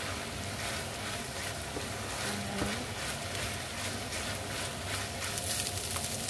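Ground pork sizzling in a nonstick frying pan with soy sauce just added, stirred with a wooden spatula: a steady sizzle full of fine crackles.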